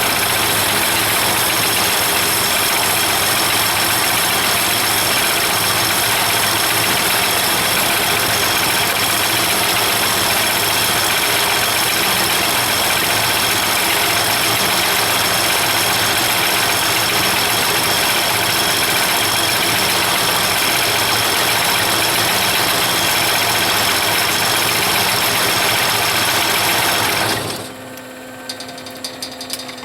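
Kubota V1305 four-cylinder diesel engine powering a LogMaster LM2 sawmill, running loud and steady. Near the end the noise stops abruptly, leaving a fainter hum that begins to wind down in pitch.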